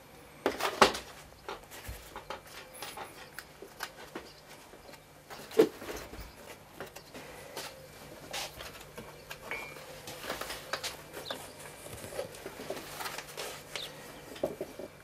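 Hands working a deer's glued skin over a taxidermy form: scattered rustles, soft taps and knocks of handling, with a sharp knock just under a second in and another about five seconds later.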